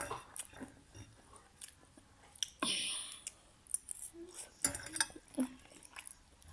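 Close-up eating sounds: a person chewing food, with many small sharp mouth and utensil clicks and a brief hiss about two and a half seconds in.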